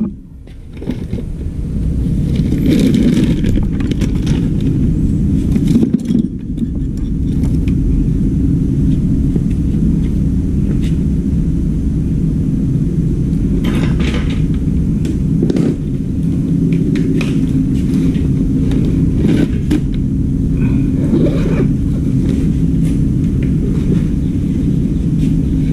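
A steady low mechanical rumble with a constant hum runs throughout. Over it come intermittent scrapes, rustles and clinks of tools and cables being shifted inside a soft tool bag, loudest about three seconds in and around the middle.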